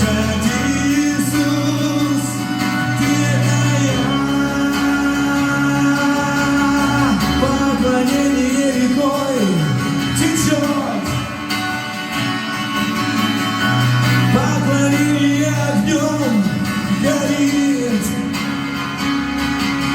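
Live worship music: a band holds sustained chords over a steady bass, while a voice sings gliding lines with no clear words above them.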